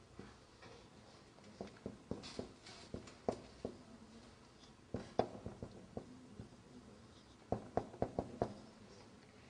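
Marker pen writing on a whiteboard: clusters of short taps and strokes, with a quick run of about five taps near the end.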